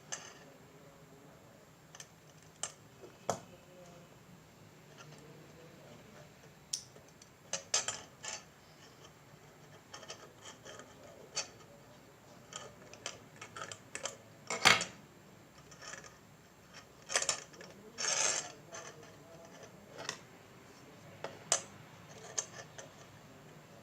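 Small tools and parts being handled at a workbench while wiring and soldering a circuit board: irregular clicks and taps with short scrapes. The sharpest click comes a little past the middle and a longer scrape soon after.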